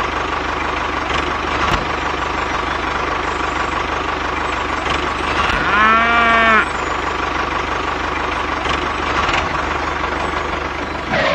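An engine runs steadily throughout, and a single cow moo of under a second comes about six seconds in.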